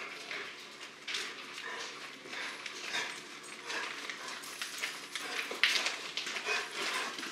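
Dog sounds at a guide-dog school kennel, with short sharp sounds of a dog and handler walking on a concrete walkway that grow louder near the end as they come closer.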